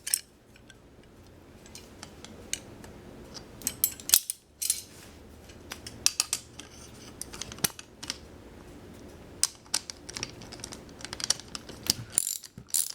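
Scattered metallic clinks and clicks at irregular intervals as wheelchair wheel parts and tools are handled, over a faint steady hum.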